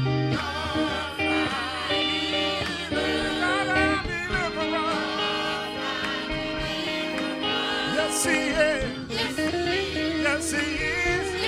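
Gospel music: a singer with wavering, vibrato-laden notes over guitar and instrumental accompaniment.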